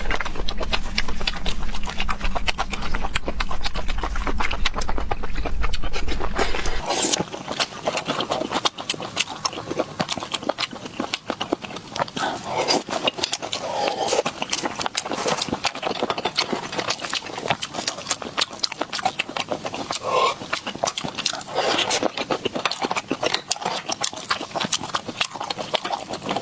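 Close-miked eating of river snails: rapid wet mouth clicks and smacks from sucking the meat out of the shells and chewing. A low hum underneath during the first seven seconds cuts off suddenly.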